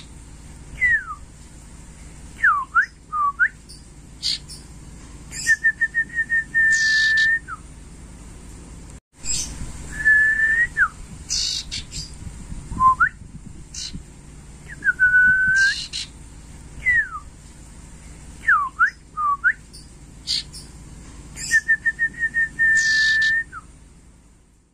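Common iora (sirtu) whistling its song: a clear held note, quick downward-slurred notes, and a fast run of short notes that ends in a held note, with short high chirps between. The phrases repeat over and over.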